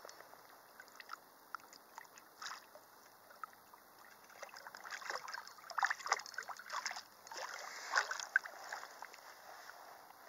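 Water sloshing and splashing close by in irregular bursts, sparse at first and getting much busier from about four seconds in.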